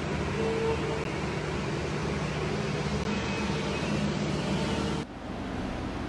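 CNC milling machine running a machining program: a steady machine hum with a higher whine that comes and goes. About five seconds in it cuts abruptly to a quieter, even hiss.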